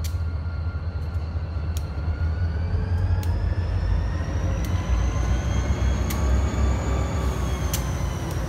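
Diesel freight locomotives led by Ohio Central 3306 rolling slowly past close by: a steady deep engine rumble with a high whine that slowly rises and then falls away near the end, and occasional sharp clicks.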